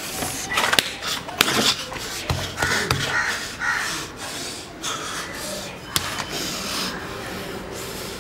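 Crows cawing, with several sharp clicks and knocks scattered through.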